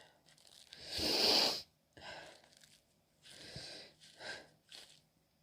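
A woman's breath hitching as a sneeze builds, from a cold coming on: a run of sharp, catching breaths, the loudest and longest about a second in, then four shorter ones.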